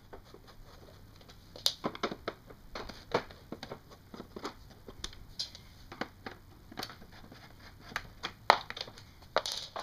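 A hand screwdriver clicking and scraping as it backs screws out of the bottom plate of an upturned Eureka upright vacuum cleaner. The short, irregular clicks and scrapes of tool and hands on the vacuum's base come one after another, the sharpest about eight and a half seconds in.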